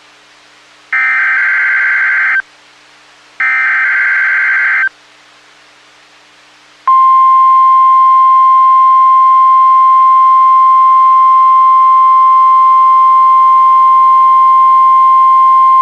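NOAA Weather Radio Emergency Alert System test signal: two harsh, warbling digital SAME header bursts of about a second and a half each, a pause, then the steady single-pitched weather radio warning alarm tone for about nine seconds.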